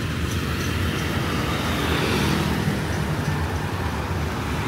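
Steady street traffic: motor vehicle engines running and passing, with a low engine hum under the road noise.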